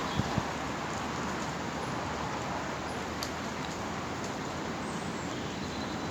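Steady rushing of wind through the trees, with two short, soft knocks near the start.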